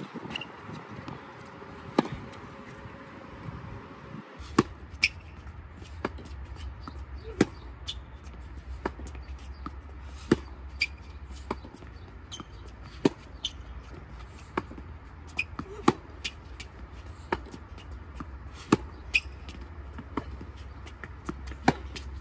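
Tennis rally on a hard court: the ball's sharp pops off racket strings and bounces on the court, about one a second.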